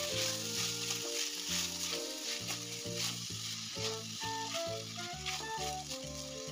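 Diced carrots and potatoes sizzling in hot oil in an enamel wok, stirred with a silicone spatula that scrapes through them.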